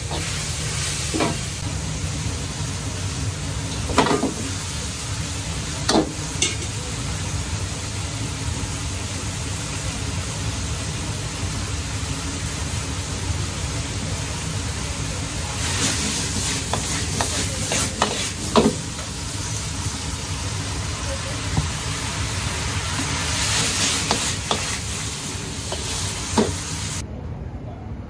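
Vegetables stir-frying in a wok over a gas wok burner: a steady burner roar under continuous sizzling, with a metal ladle clanking against the wok now and then, loudest about eighteen seconds in.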